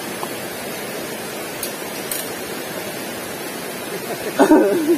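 Steady rushing of flowing river water, with a person's voice heard briefly near the end.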